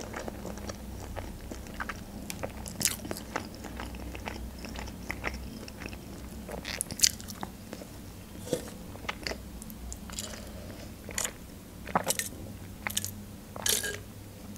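Close-up mouth sounds of a person chewing food, with short clicks and smacks scattered throughout. Near the end comes a brief sip through a straw.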